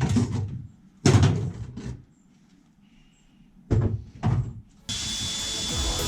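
A few knocks and clunks of parts being handled and fitted under a car's dashboard. About five seconds in, electronic background music starts.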